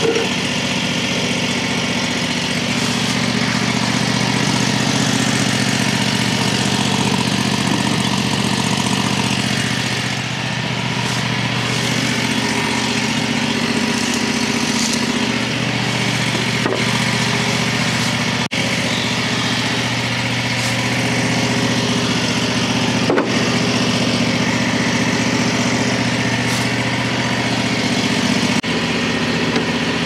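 Engine of a Frontier OS35 portable band sawmill running steadily, its note shifting slightly about ten seconds in, with a few very brief breaks in the sound later on.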